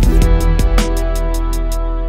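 Outro background music with guitar and a steady beat, a new phrase coming in at the start.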